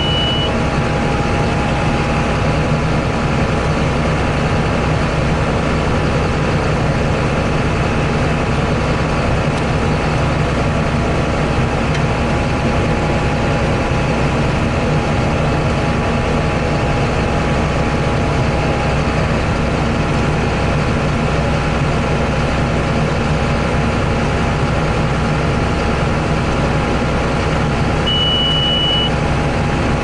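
John Deere 8100 tractor's six-cylinder diesel running steadily under load, heard from inside the cab. A short high beep sounds for about a second near the end.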